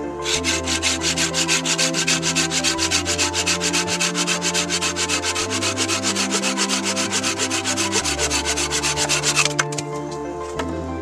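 A curved folding hand saw cuts through a log with rapid, even push-and-pull strokes, then stops suddenly near the end as the cut goes through. Soft background music plays underneath.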